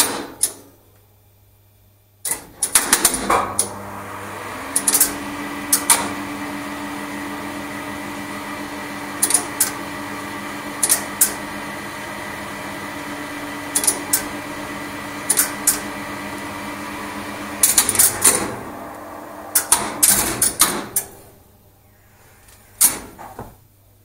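An Express Lifts lift controller at work: a rapid clatter of relays and contactors pulling in as the lift starts, then the lift machine running with a steady hum for about thirteen seconds, broken by single relay clicks every second or two. A second clatter of contactors and relays dropping out follows as the machine stops, with a few more clicks near the end.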